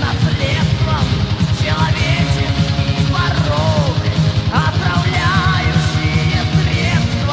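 Mid-1980s Soviet heavy metal recording: fast, even drumming and bass under a high melodic lead line that bends and wavers in pitch.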